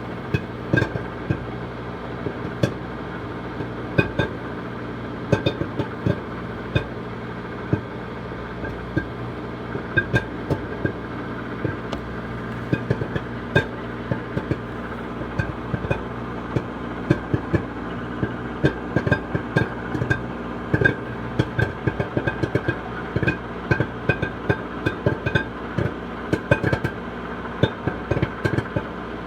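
Microwave oven running with a steady hum while popcorn kernels pop inside a silicone popper bowl. The sharp pops come a few at a time at first, then several a second from about halfway through, as the batch reaches full popping.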